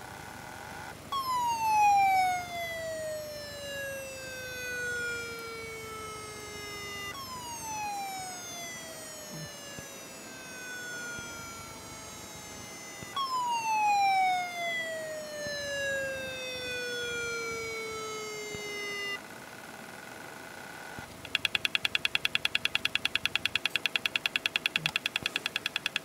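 Very old laptop hard drive making strange noises as the laptop starts: three times a whine that starts high and slides steadily down in pitch over about six seconds. Near the end it turns to a fast, even run of clicks for about five seconds.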